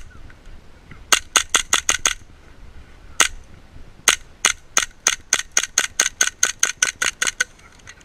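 Tokyo Marui Hi-Capa gas-blowback airsoft pistol firing quick semi-automatic shots, each a sharp pop. First a string of about six shots, then a single shot, then a fast run of about fifteen at roughly four a second.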